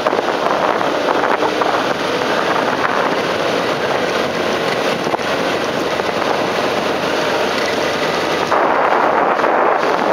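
Steady rushing noise of a car rolling slowly along a sandy forest track, with wind buffeting the microphone. The noise grows slightly louder and changes in character about eight and a half seconds in.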